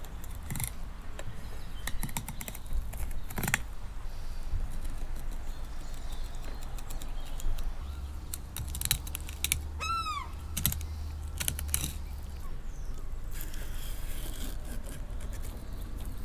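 Knife clicking and tapping on a cutting board as a fish is filleted, with one short gull call, rising then falling in pitch, about ten seconds in.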